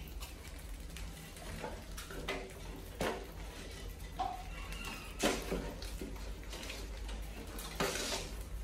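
Mice scrabbling over a wooden ramp and a plastic water jug: scattered light taps, clicks and scratches of claws, the sharpest about three, five and eight seconds in, over a steady low hum.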